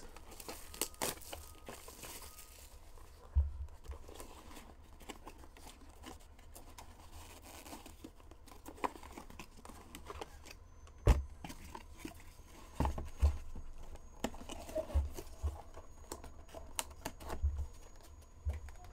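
Plastic shrink wrap is torn and crinkled off a sealed box of trading cards. The box is then opened and its contents handled, with scattered taps and knocks, the sharpest about eleven seconds in.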